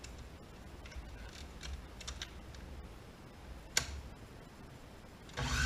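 Light clicks and taps of a plastic blender pitcher and lid being handled and fitted, with one sharp click a little before four seconds in. Near the end the blender motor starts up and runs loud and steady.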